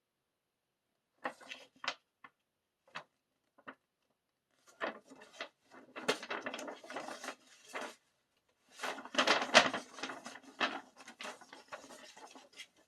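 A folded paper album insert being handled and unfolded: a few short taps and clicks at first, then two longer spells of paper rustling and crinkling.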